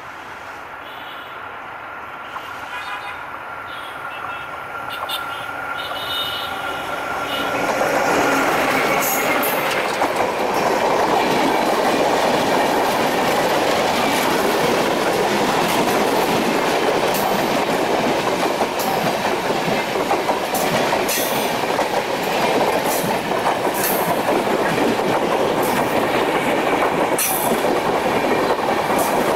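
ALCO WDM-3A diesel locomotive hauling an express at speed, growing louder as it nears and passing about eight seconds in. Then a long rake of LHB passenger coaches rolls past close by: a loud, steady rush of wheels on rail with scattered clicks over the rail joints.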